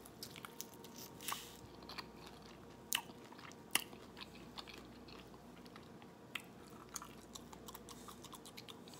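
Biting into and chewing a crispy fried buffalo chicken drumstick: faint, scattered crunches and crackles of the fried crust, the sharpest around one, three and four seconds in.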